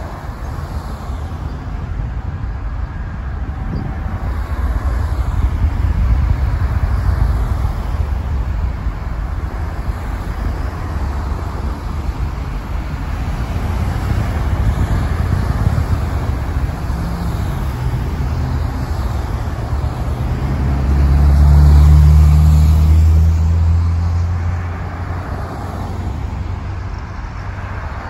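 Distant Atlas V rocket launch rumble: a deep, low rumble that swells and fades, loudest about three-quarters of the way through.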